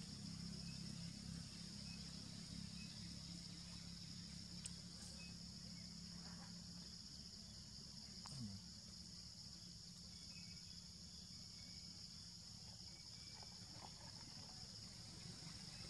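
Faint, steady, high-pitched insect chorus, with a low hum underneath that fades out about halfway through and a few soft clicks.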